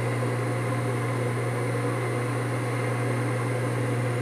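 Industrial sewing machine's electric motor running with a steady low hum while the needle is not stitching.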